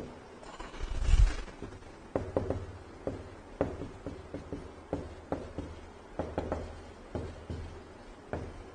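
Handwriting: irregular light taps and short scratches of a writing tip on the writing surface, with a louder low bump about a second in.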